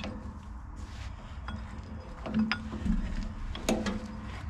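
Metal tool and puller parts clinking and knocking as a hub puller is set up on a tractor's rear axle hub: a few sharp clinks, the loudest about three and a half seconds in, over a low steady rumble.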